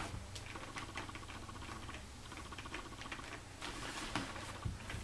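Faint, irregular light clicks and taps of hands handling and posing a ball-jointed doll as it is stood upright on a tabletop.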